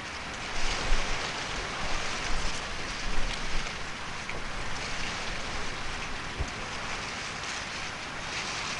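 Steady hiss of rain, with a few low gusty rumbles in the first few seconds.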